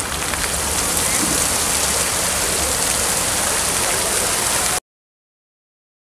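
Fountain water jets spraying up and splashing back into a shallow pool: a steady hiss of falling water that swells slightly in the first second and cuts off abruptly near the end.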